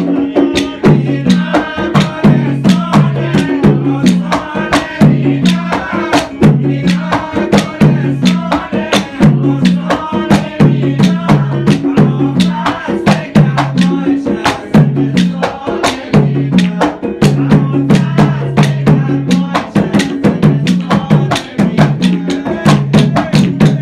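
Background music driven by percussion: sharp drum and clicking strikes several times a second over a repeating bass line.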